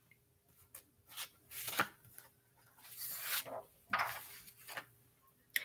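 Paper being handled: scattered soft rustles and a few light taps and clicks.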